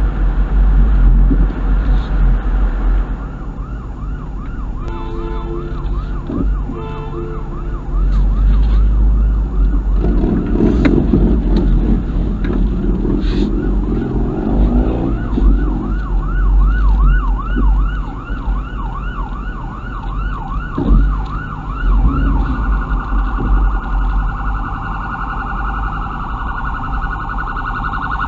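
Ambulance siren running code 3 in a whooping yelp that sweeps up and down about twice a second, then switches about three quarters of the way through to a much faster warble, over a steady low rumble.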